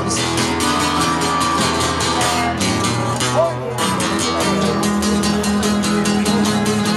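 A live duo playing guitars, strummed in a steady rhythm, with a short break in the strumming a little past halfway.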